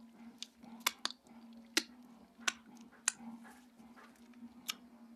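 A person chewing a small cooked bird close to the microphone, with about half a dozen sharp crunches of its soft bones between quieter wet chewing. A steady low hum runs underneath.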